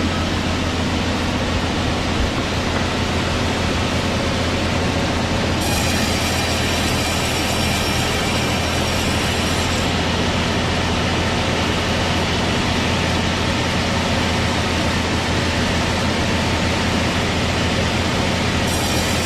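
Sawmill machinery running with a steady low drone. A higher whine joins about six seconds in for about four seconds, and comes back near the end.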